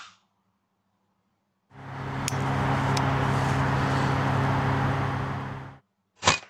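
A steady mechanical hum with hiss runs for about four seconds, starting and stopping abruptly. Near the end comes a single sharp crack: a shot from a moderated FX Dynamic Compact PCP air rifle.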